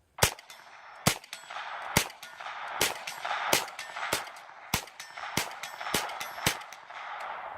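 Rapid, evenly paced gunfire: about ten sharp shots, roughly one every two-thirds of a second.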